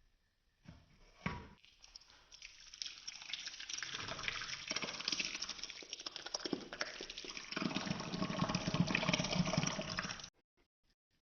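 Water running from a kitchen tap, splashing into a vessel. It builds up over the first couple of seconds, runs steadily, then stops suddenly about a second before the end, as if the tap is shut off.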